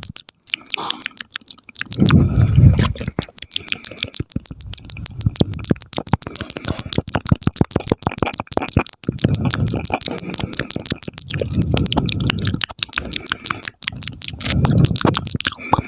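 Close-miked ASMR mouth sounds: rapid wet tongue clicks and lip pops, several a second, with a low muffled swell now and then.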